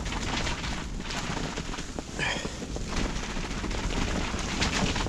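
Väinö Bunker 3 ice-fishing tent's fabric flapping and snapping rapidly in strong, gusty wind, a steady crackle of small bangs over wind noise.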